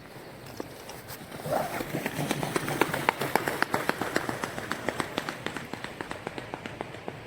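A fast series of sharp taps or clicks, several a second, that starts about a second and a half in and thins out near the end.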